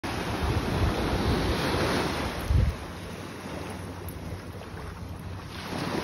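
Small ocean waves breaking and washing up on a sandy beach, with wind buffeting the microphone in low rumbling gusts. The wash and wind are louder for the first half, with one heavy gust thump about two and a half seconds in, then settle to a softer steady hiss.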